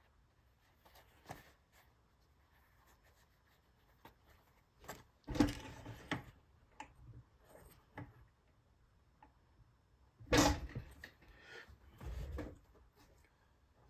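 Handling sounds at a fur sewing machine: leather and fur rustling and scraping, with scattered light clicks, as the pieces are set between the machine's feed wheels. Two louder rustling scrapes come about five and ten seconds in.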